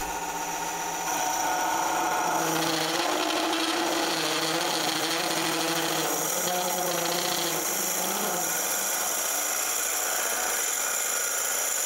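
Wood lathe spinning a blank while a 40 mm carbide-tipped cup boring bit (Forstner-type), fed from the tailstock, cuts into the end grain. It is a steady rasping cut over the lathe's hum, and it grows louder about a second in as the bit bites.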